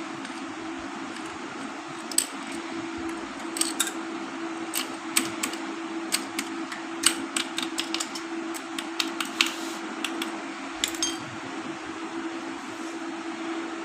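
Small metal tools and motorcycle clutch parts clinking and tapping against each other in irregular sharp clicks, over a steady hum.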